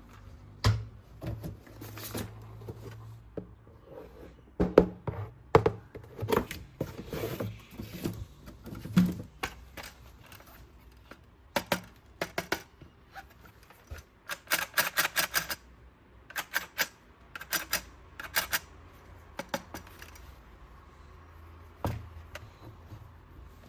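Plastic toys and packaging being handled, with irregular clicks, taps and short rustles and a quick run of clicking a little past halfway.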